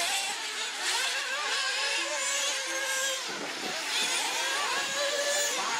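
Several small nitro-fuelled 1/8-scale off-road RC car engines running at once, their high-pitched whine revving up and down as the cars accelerate, brake and jump around the track.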